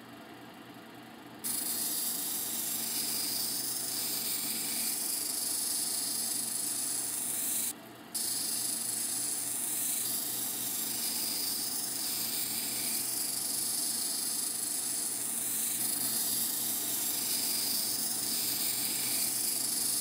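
A 3000-grit diamond wheel on a water-fed cabbing machine, with a tiger eye cabochon on a dop stick held against it: a steady wet, hissing grind over a low machine hum. It starts about a second and a half in, with a brief break near the middle.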